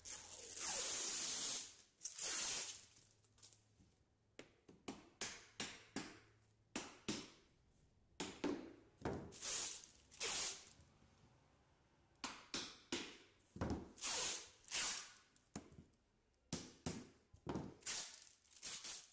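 Protective plastic film being peeled off the front face of a roof-edge trim: one long ripping peel near the start, a second shorter one, then a run of short, quick rips.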